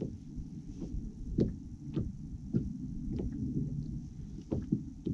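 Small waves slapping against an aluminium-and-fibreglass bass boat's hull in irregular knocks, about two a second, over a steady low rumble of wind and water.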